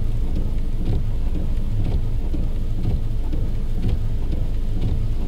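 Car engine idling, heard from inside the cabin: a steady low rumble with faint light ticks.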